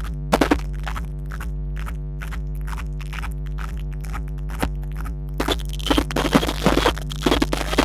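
Fireworks display set to music: steady musical tones with sharp firework bangs, then from about five and a half seconds in a dense crackling of bursting stars.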